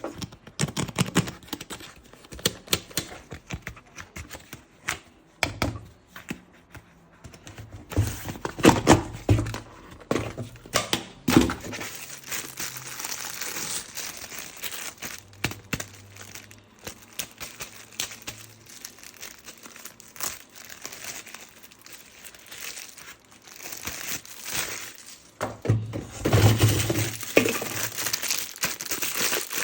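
Plastic packaging crinkling and tearing, with many sharp clicks and knocks of hard plastic toy parts being handled, busiest near the end.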